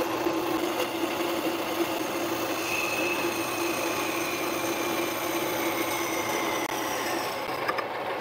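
Mini lathe running, its tool taking a turning cut along a polycarbonate bar, a steady hum under an even hiss as stringy plastic chips peel off.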